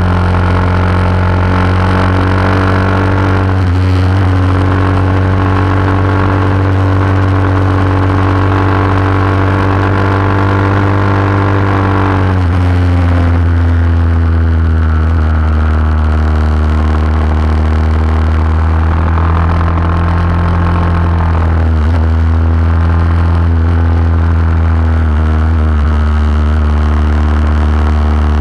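Vintage racing motorcycle engine running hard at high revs through long corners, heard from on board. About twelve seconds in, the pitch drops and then climbs slowly again, and there is another brief dip near twenty-two seconds.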